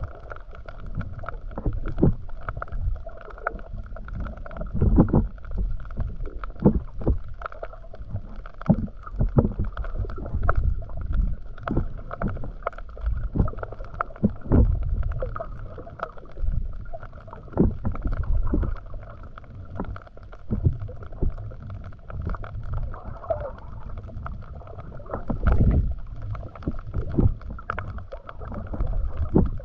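Underwater sound picked up by a camera swimming just above the seabed: muffled swishes and low thumps of water moved by the swimmer's arm strokes, coming irregularly about once a second, over a steady hum.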